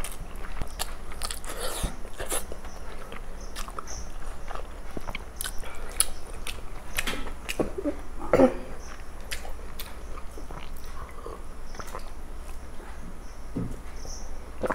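Close-miked eating sounds: mouths chewing curry and rice with many small clicks and smacks, and one louder smack about eight seconds in.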